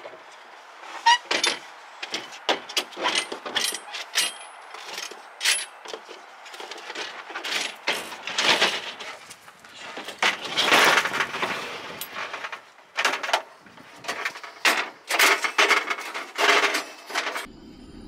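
Camp cooking gear being handled and set out: an irregular run of clinks, knocks and rustling scrapes, some loud, with no steady tone.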